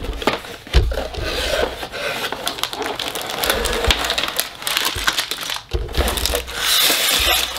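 Cardboard LEGO box being opened and clear plastic bags of bricks pulled out, rustling and crinkling, with a thump about a second in. The crinkling is densest near the end.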